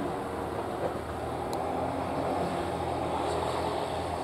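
JR East GV-E400 diesel-electric railcar approaching, its engine running with a steady low hum.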